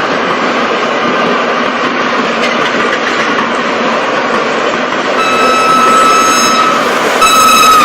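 Train running on the rails with a steady rumble. About five seconds in, a high-pitched wheel squeal sets in as it grows louder, breaks off briefly, and returns near the end.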